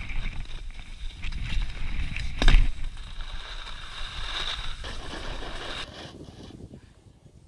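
Ski bike's skis scraping and hissing over snow on a fast downhill run, with rumbling wind noise on the camera microphone and a heavy thump about two and a half seconds in. The noise falls away about six seconds in.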